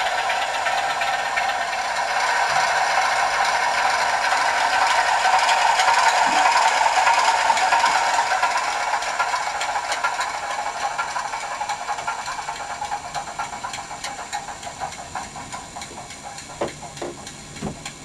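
Sound-fitted OO gauge model Class 47's decoder playing a diesel engine through its small onboard speaker, in its shutdown sequence: the engine runs on, then fades away over the second half, with a few clicks near the end as it dies.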